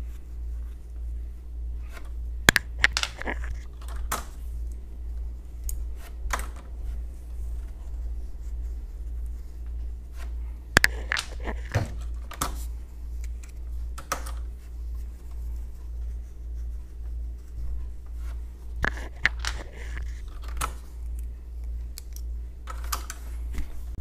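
Plastic keycaps being pulled off a mechanical keyboard with a keycap puller: sharp clicks and snaps in short clusters every few seconds, over a steady low hum.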